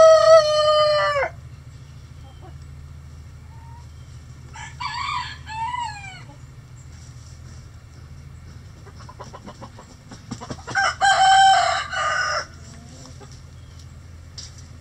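Bantam roosters crowing: a loud crow ending about a second in, a fainter call around five seconds, and another loud crow about eleven seconds in, with hens clucking softly in between.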